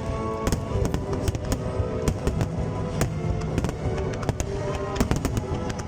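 Fireworks going off in quick, irregular bangs and crackles over loud music.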